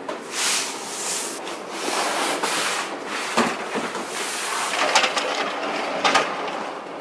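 A new dishwasher being opened and its racks pulled out: sliding, rubbing noise with a few sharp clicks and knocks, the loudest about five and six seconds in.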